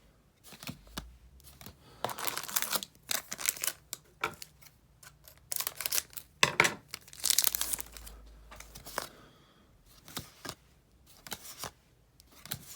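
A trading-card booster pack wrapper being torn open and crinkled, in several rips, the loudest about six to eight seconds in. Light clicks and shuffles of cards being handled follow.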